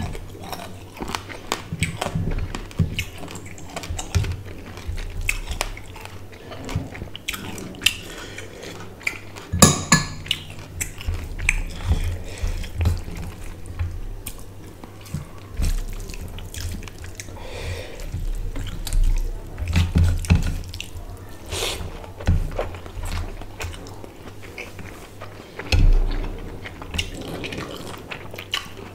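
Close-miked wet chewing, lip smacks and squelches of a person eating rice and fish curry by hand, with the sticky sound of fingers working rice through curry. Irregular sharp clicks and smacks run throughout.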